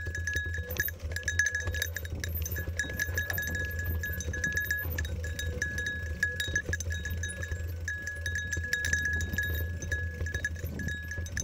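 A mountain bike rattling down a dirt trail: a steady low rumble from wind and tyres, many small clicks and rattles, and a high metallic ringing that keeps jingling on and off with the bumps.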